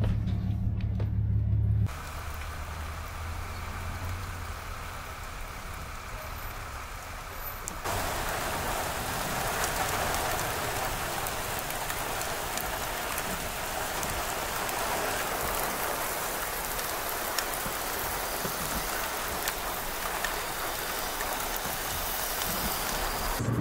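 Steady rain falling, an even hiss of drops that steps up louder about eight seconds in. For the first two seconds a low, steady engine hum from an idling vehicle sounds under it, then stops abruptly.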